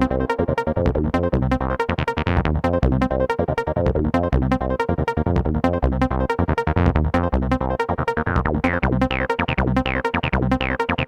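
Electronic dance music with a fast, steady beat and synthesizer bass.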